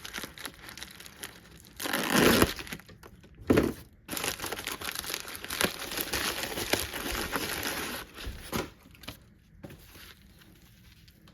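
Packaging crinkling and rustling as it is handled and unwrapped. There is a loud burst about two seconds in, dense crackling for several seconds after that, and it dies down near the end.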